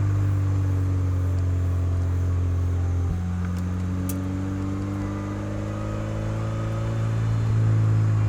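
MINI GP3's turbocharged four-cylinder engine and exhaust running under way with a steady drone. About three seconds in the engine note steps up, then slowly climbs.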